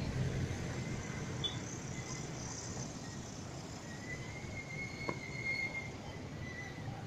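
Outdoor roadside ambience: the low rumble of a passing vehicle fades away over the first couple of seconds. In the second half a faint high, steady call, like a bird or insect, runs for about two and a half seconds, with a single small click near its middle.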